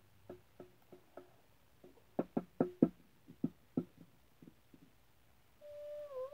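Small plastic toy figures knocked and tapped on a hard surface in a quick, irregular series of short knocks. Near the end, a child's voice holds a tone that dips and then rises.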